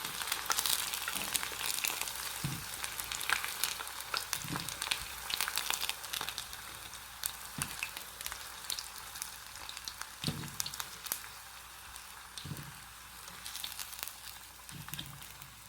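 Cornstarch-coated chicken pieces sizzling and crackling in hot oil in a wok, with scattered clicks and a few low knocks. The sizzle slowly dies down.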